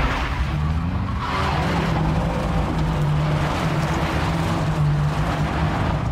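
Ford Fiesta ST's 1.5-litre three-cylinder turbo engine held at high revs as the car drifts in tight circles, with its tyres skidding on a loose, dusty surface. The engine note rises and dips slightly as the throttle is worked.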